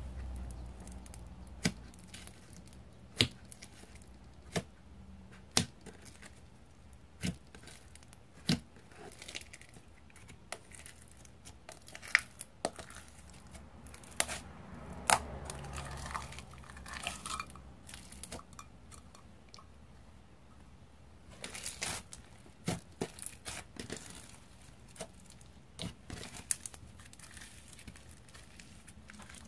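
Handmade slime with crushed jelly cubes being poked, stretched out of a jar and kneaded by hand: irregular sharp clicks and pops with crackly stretching sounds, busiest about 22 seconds in.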